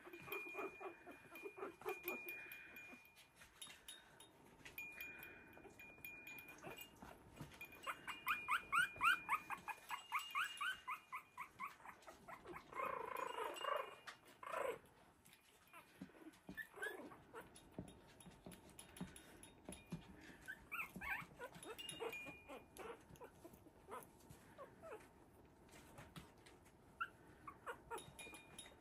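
Three-week-old Havanese puppies making short, high cries and squeaks as they play, faint overall. The cries come quickly in a run about eight to eleven seconds in, with another burst a couple of seconds later.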